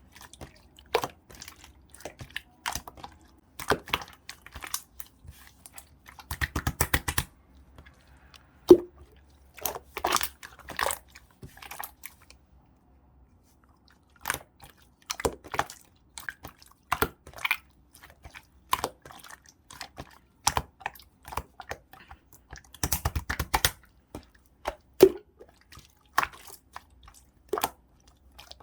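Clear slime being squished and poked by hand: irregular sticky clicks and pops, with two quick runs of crackling pops, one about six seconds in and one near twenty-three seconds, and a brief pause around twelve seconds.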